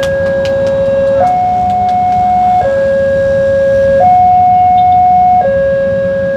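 Railway level-crossing warning alarm sounding its two-tone signal, a lower and a higher tone alternating about every one and a half seconds, warning that a train is approaching. A low rumble of traffic lies underneath.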